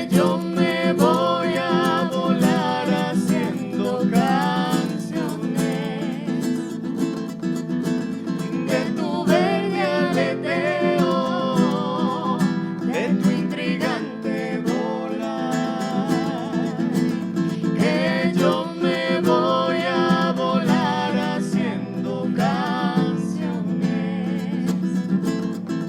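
Acoustic guitar strumming chords under a sung melody with vibrato: a live song.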